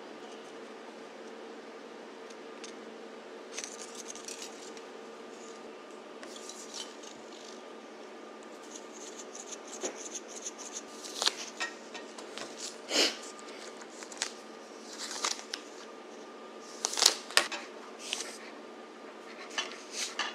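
Kitchen tools being handled out of their packaging: plastic wrapping crinkles and rustles, with small clicks and taps. The handling is sparse at first and busier in the second half, over a faint steady hum.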